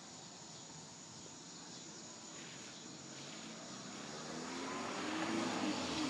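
A car driving past, growing louder over the last two seconds, with a hum that rises and falls in pitch as it goes by.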